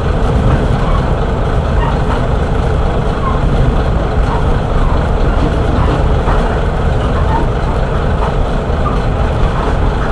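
Inside the cabin of a Kashima Rinkai Railway 6000 series diesel railcar under way: its vertical-cylinder diesel engine and the wheels on the rails make a steady, deep running rumble.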